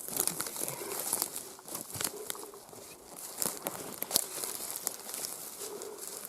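Irregular rustling and crackling close to the microphone, with many small sharp clicks, like dry forest litter or gear being disturbed while moving through the woods.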